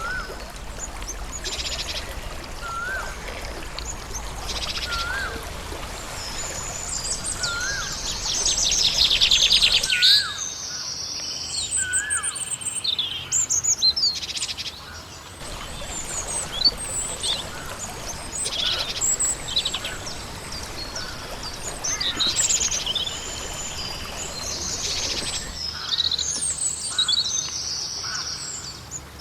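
Several wild birds chirping and singing together, a mix of short high calls and trills. Through the first dozen seconds one bird repeats a short rising-and-falling note about every second and a half, and the loudest moment is a dense rapid trill around nine seconds in. The background hiss shifts abruptly a few times, as between joined recordings.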